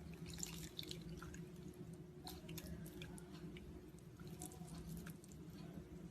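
Faint, scattered small crackles and clicks over a steady low hum.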